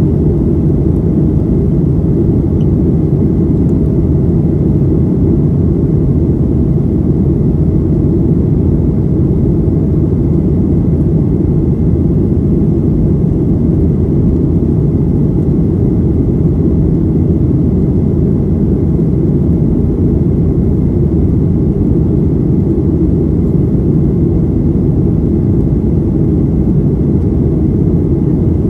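Steady low roar of a Boeing 737-800's CFM56 jet engines and airflow as heard inside the passenger cabin in flight, with a faint steady whine above it.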